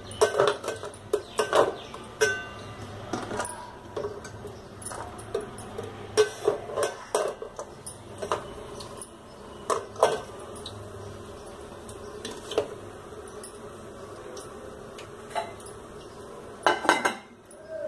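Stainless-steel idli plates clinking against each other and against the metal pot of an electric rice cooker as they are set in. There are many short clinks at first, then only a few scattered ones, and another clatter near the end.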